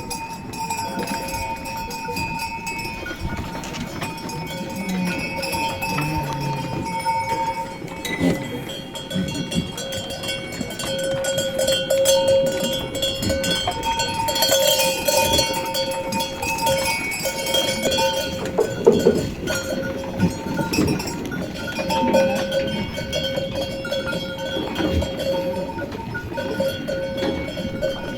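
Bells on a flock of sheep ringing and clanking steadily as the animals move, with scattered animal calls among them.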